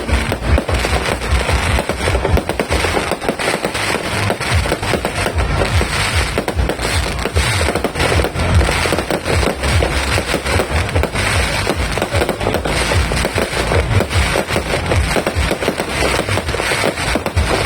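A 5,000-shot fireworks cake firing a rapid, unbroken barrage of bangs and crackles, many shots a second with no pause.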